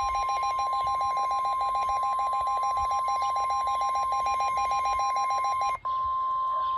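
Weather radio sounding a warning alert: the steady NOAA Weather Radio warning tone of about 1 kHz, with a rapid pulsing beep from the receiver over it, marking another severe thunderstorm warning. Near the end the pulsing stops after a brief dropout, leaving the steady tone alone.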